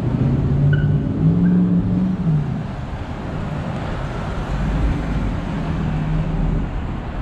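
Road traffic: vehicle engines running over a steady low rumble, one engine rising in pitch about a second in and fading away again.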